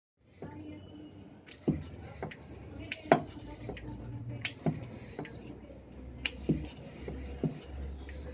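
Wooden rolling pin and round stone board in use while thin dough is rolled out and lifted off the board: a low rumble under about nine scattered sharp clicks and knocks.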